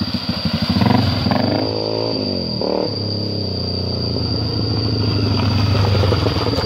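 Honda CRF250L's single-cylinder four-stroke engine running as the dirt bike rides through a shallow stream, revving up and easing off about two seconds in, then pulling steadily and growing a little louder as it comes close along a dirt trail.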